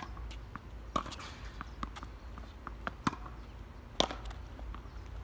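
Tennis rally: sharp pops of rackets striking the ball and of the ball bouncing on a hard court, loudest about a second in, near three seconds and at four seconds, with lighter ticks of steps and bounces between.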